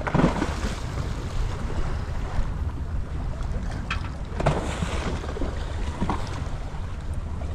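Wind buffeting the microphone: a steady low rumble with a hiss over it, broken by a few short clicks and knocks around the middle.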